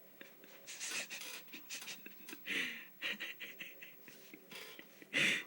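A person breathing out hard three times, with small clicks and rustles between the breaths.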